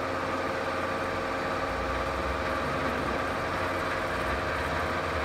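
Cincinnati Cinova 80 vertical milling machine running under power: a steady gear-driven whine of several even tones, joined by a deeper rumble a little under two seconds in.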